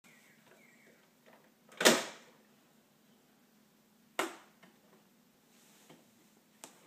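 Plastic toy kitchen being banged by a small child: a loud plastic clack about two seconds in as the toy microwave door is slammed shut, another sharp clack a little after four seconds, and a lighter click near the end.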